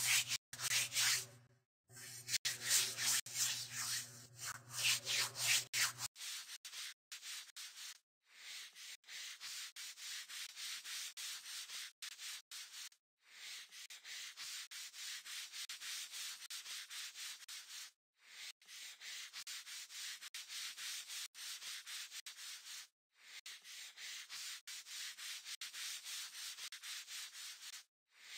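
Scrubbing sound effect: rapid rubbing strokes, fuller and deeper for about the first six seconds, then lighter and hissier, coming in runs of a few seconds with short breaks between them.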